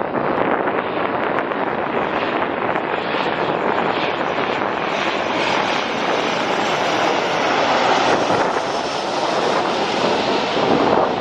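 Jet airliner engines running, a steady rushing noise that grows a little louder near the end, with wind buffeting the microphone.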